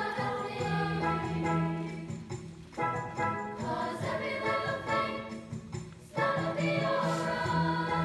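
Middle-school treble choir singing in unison and harmony with piano accompaniment, the phrases broken by two short pauses about three and six seconds in.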